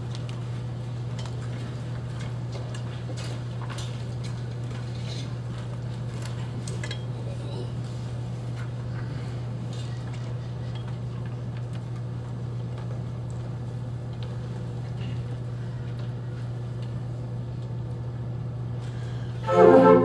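Steady low room hum with faint clicks and clinks as players handle their flutes and music between pieces. About half a second before the end, the flute ensemble starts playing together, much louder.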